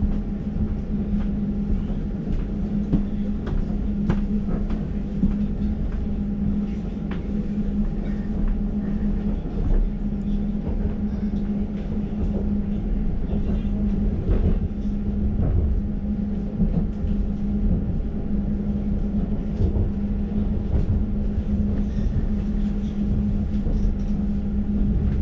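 Cabin noise of a moving Elizabeth line Class 345 train: a steady low hum with a fainter constant tone above it, rumbling wheels on the rails and scattered short knocks.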